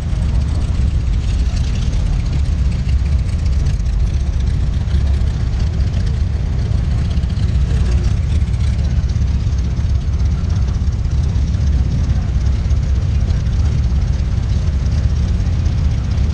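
Motorcycle engines running at low speed in slow street traffic, a steady low rumble.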